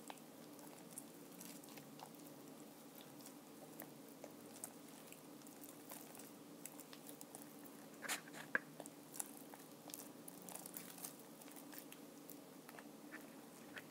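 Faint sticky clicks and squishes of glue slime with soap mixed in, kneaded and stretched by hand, with a few louder pops about eight seconds in.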